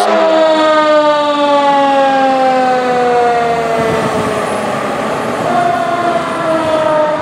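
Fire engine siren wailing as the truck drives past, its tone sliding slowly down in pitch, then starting higher again about five and a half seconds in and falling once more.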